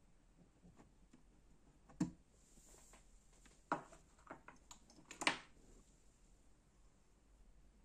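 Handling noise while vacuum tubes are swapped on a tube tester: a sharp knock about two seconds in, then a cluster of clicks and knocks a little later, the loudest near its end.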